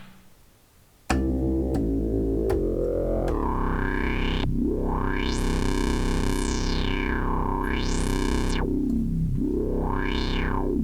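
Synthesizer sound from a Maschine sample pack, starting about a second in and held, its filter swept up and down several times with the mod wheel, the sweeps quicker near the end.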